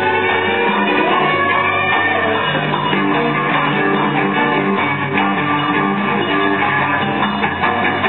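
Ethiopian jazz band playing live, with a cello among the instruments.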